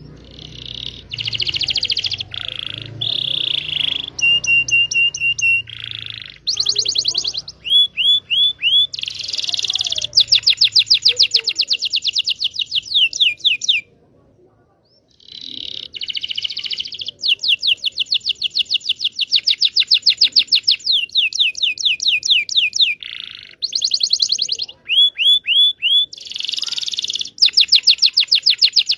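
Domestic canary singing a long, varied song of fast rolling trills and whistled phrases, with a short pause about halfway through.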